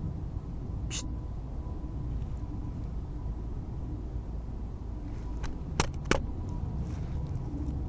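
Steady low rumble of wind and movement on a head-mounted camera's microphone. There is a faint sharp click about a second in, then two sharp clicks a third of a second apart near six seconds in, the loudest sounds here.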